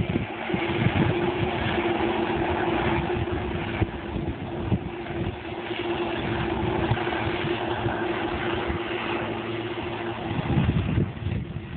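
Claas Medion 340 combine harvester running steadily at work, its engine and machinery giving a constant hum with a held tone that drops out about ten seconds in.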